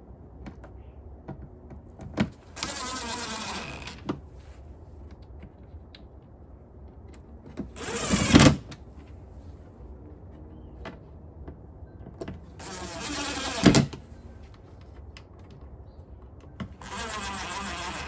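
O-Cedar EasyWring spin mop bucket's plastic parts being screwed back together over the duct-taped shaft: four separate bursts of plastic rasping and whirring, each a second or so long, two of them ending in a sharp clack.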